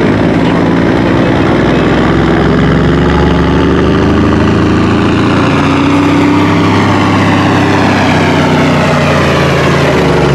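Diesel semi truck engine running hard under full load while pulling a weight-transfer sled. Its pitch slowly falls over the second half of the pull.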